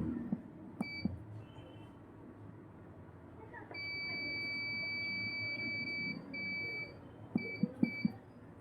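A-scan biometry unit beeping with a single high electronic tone: two short beeps in the first second, a long beep of about two and a half seconds around the middle, then a few shorter beeps, with several soft clicks near the end.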